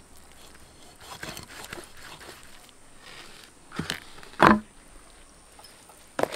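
A large knife scoring a big scaled fish on a banana leaf: a few soft scraping strokes through the skin, then a couple of sharp knocks and one heavy thud about four and a half seconds in as the blade chops into the fish, with another knock near the end.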